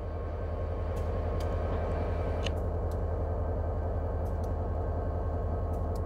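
Diesel locomotive running as it approaches, a steady low engine rumble that grows slightly louder, with a few faint high clicks.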